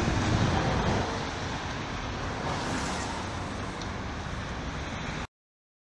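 City street traffic noise, a steady hiss with a low rumble, cutting off suddenly about five seconds in.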